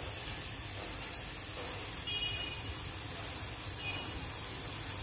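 A pan of curry simmering uncovered on the stove: a steady, low cooking hiss. A few faint, short, high tones sound about two and four seconds in.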